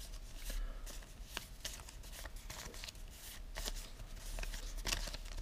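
Folded paper slips being shuffled and rubbed together between the hands, a soft irregular rustling and crackling, as the lots are mixed for a draw.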